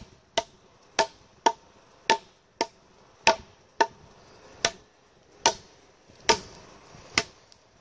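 Dirty Bear Bowie knife chopping into a wooden 4x4 post: about a dozen sharp blade strikes into the wood, about one every half second at first and a little slower in the second half.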